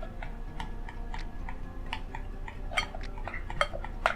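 Spoons clicking and scraping against a bowl in irregular small ticks as glue and baking soda are stirred together for slime.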